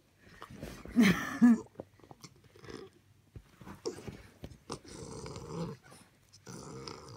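English bulldog puppy growling in play while mouthing a shoe. The loudest part is two short pitched growls about a second in, followed later by rougher, noisier growling.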